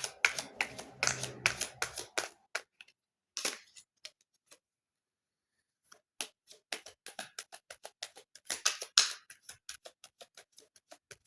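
Irregular light clicks and taps, several a second, with a pause of about two seconds near the middle, then a steady run of clicks again.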